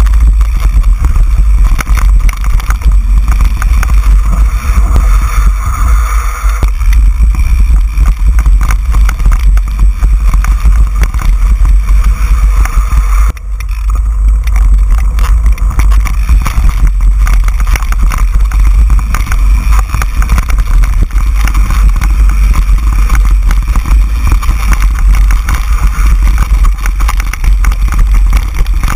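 Mountain bike riding a dirt singletrack: heavy wind rumble on the bike-mounted camera's microphone over continual rattling and clatter from the bike on the rough ground, with a brief lull about halfway through.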